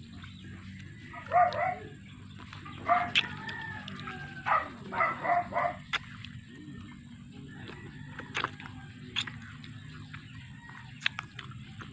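Chickens calling, with a rooster crowing several short times between about one and six seconds in. Later come scattered sharp clicks and smacks from eating Java plums.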